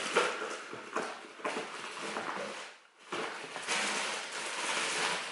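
Rustling handling noise with a few light clicks, pausing briefly about three seconds in and then going on as a steadier rustle.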